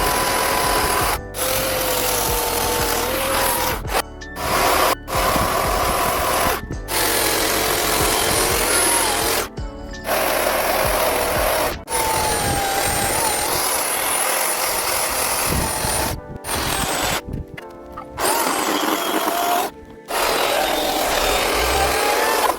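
Chainsaw running as it carves wood, its engine pitch wavering up and down with the throttle, broken by about ten sudden short drops in level.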